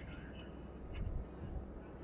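Low outdoor rumble with a dull thump about a second in, and faint bird chirps at the start.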